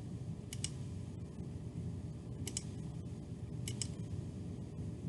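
Computer mouse clicks, three quick pairs a second or two apart, over a steady low background hum.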